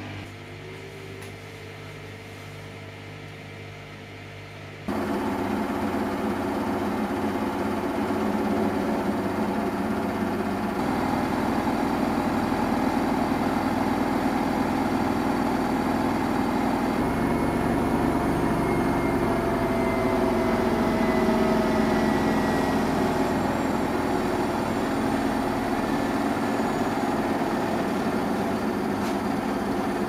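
Samsung Eco Bubble front-loading washing machine near the end of its cycle: a quiet steady running hum for about the first five seconds, then abruptly much louder as the drum spins at high speed in the final spin, with a steady rushing noise and a slowly shifting motor whine, the machine set for a 1400 rpm spin.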